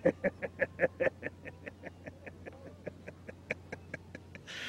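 A man laughing heartily: a long run of quick 'ha-ha' pulses, about five a second, loudest at the start and tapering off, with a breathy burst near the end.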